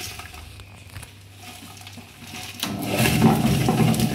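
Table-top wet grinder running, its steel drum turning against the grooved stone roller. About two and a half seconds in, grated coconut, dried red chillies and spices are scraped into the drum and the grinding suddenly grows much louder as the masala paste starts being ground.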